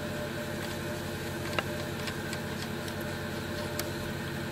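Steady background hum made of several held tones, with a few light clicks of parts being handled on the engine, the sharpest about a second and a half in.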